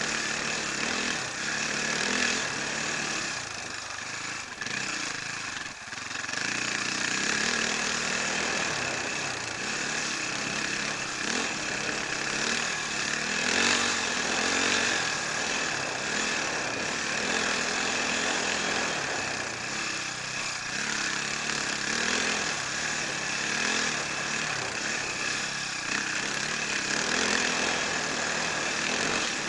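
Enduro motorcycle engine running hard, its revs rising and falling as the throttle is worked. The revs drop for a moment about four to six seconds in. Heard close up from the bike itself.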